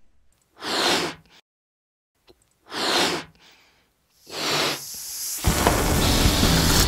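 Title-sequence sound effects: three breathy whooshes of air about two seconds apart, then a sudden loud bang, a cartoon 'kaboom', with a long rumbling tail.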